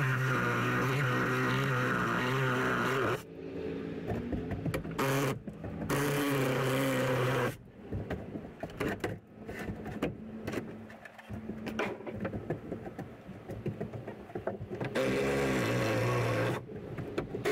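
A DeWalt cordless drill runs steadily for about three seconds, then in shorter bursts, with a last burst near the end. Between the bursts come quieter, irregular knocks and rattles.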